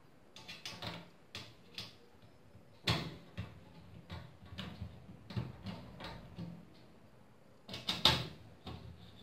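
Screwdriver driving mounting screws through a 120 mm case fan's frame into a metal PC case: irregular clicks and knocks, with two sharper knocks about three seconds in and near the end.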